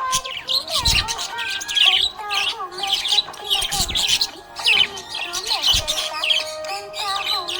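Budgerigar chirping and warbling in quick, continuous bursts of high notes, with music playing underneath.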